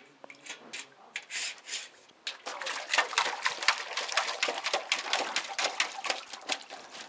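Puppy splashing and pawing in a stainless steel water bowl: wet slaps and clanks of paws against the metal bowl, a few at first, then a rapid busy splashing from about two and a half seconds in.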